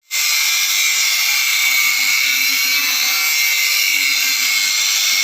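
Multifunction 12-blade chopper machine running, a loud steady high-pitched whir and hiss.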